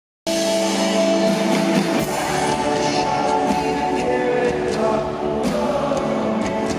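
Live rock band music with singing over guitars, cutting in abruptly at the very start.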